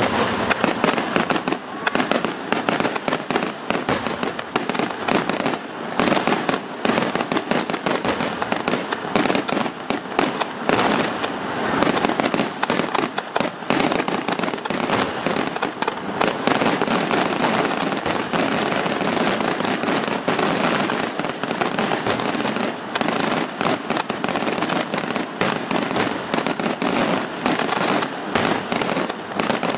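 Fireworks display: aerial shells bursting overhead in a dense, unbroken barrage of bangs and crackles.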